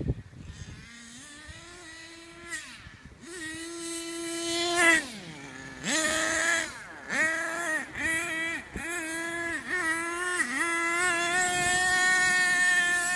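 HPI Savage radio-controlled monster truck's motor buzzing as it is driven, revving up and dropping off over and over, then held at a steady high buzz near the end.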